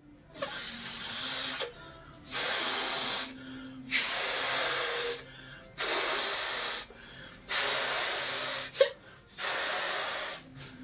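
A person blowing up a latex balloon by mouth: six long breaths of air pushed into it, each lasting about a second, with short pauses for breath between them.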